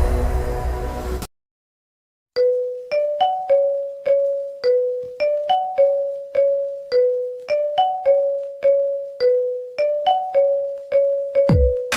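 Electronic ringtone: a simple melody of short, decaying notes, about two a second, begins after a brief silence. It follows the fading tail of a loud, noisy sound about a second in. Deep thumping beats join near the end.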